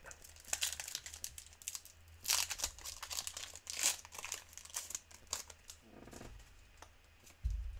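Foil wrapper of a Pokémon trading-card booster pack crinkling and tearing as it is opened and the cards pulled out: a run of sharp crackles that dies down after about five seconds, over a low steady hum.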